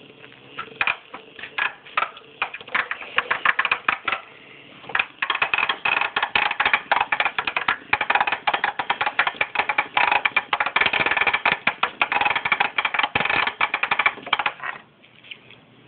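Hexbug Nano vibrating robot bug skittering on its bristle legs, a fast rattling clatter against the wooden floor and plastic walls of its play set. It comes in bursts with short lulls.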